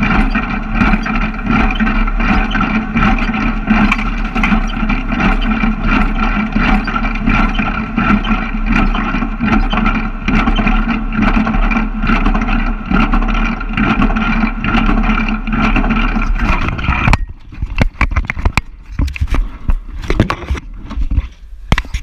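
Hesston 4590 small square baler running close up, its pickup and packer feeding hay with a steady mechanical clatter and a regular beat of clicks. About seventeen seconds in, the clatter stops and gives way to scattered knocks and bumps.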